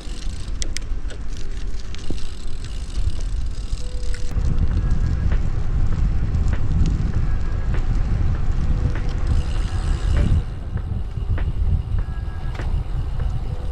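Road bike being ridden among traffic. A heavy low rumble of wind and road noise on the microphone swells in the middle stretch, with scattered sharp clicks from the bike.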